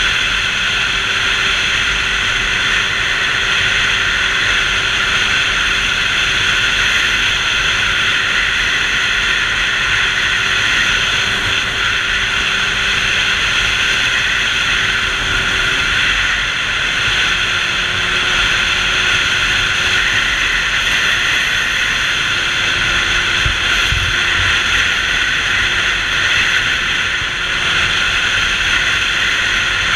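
Steady rush of wind and engine noise from a sport motorcycle riding at highway speed, picked up by a bike-mounted camera.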